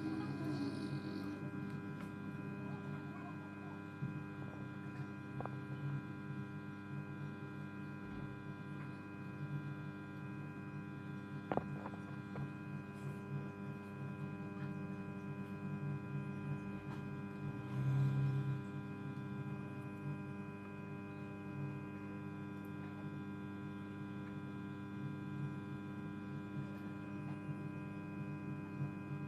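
Steady electrical mains hum, a low buzz with many even overtones, with a few faint clicks along the way.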